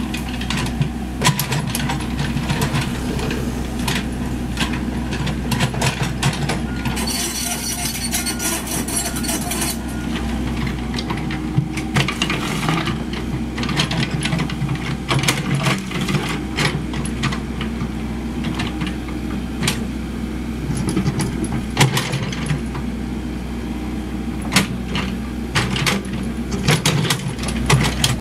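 Komatsu PC78US mini excavator's diesel engine running steadily under digging load, with frequent sharp clanks and scrapes as the steel bucket bites into soil, roots and stones.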